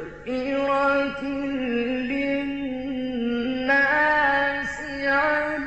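A male Quran reciter chanting in the melodic mujawwad style, holding long ornamented notes that step and turn in pitch on a drawn-out syllable, with short breaths between phrases.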